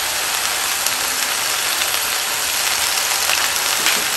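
Food frying in hot oil: a steady sizzle with a few faint crackles.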